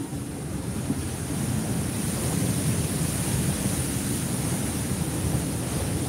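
Sea surf washing in and breaking against a rock seawall: a steady rush of water with a deep rumble, growing louder about a second and a half in.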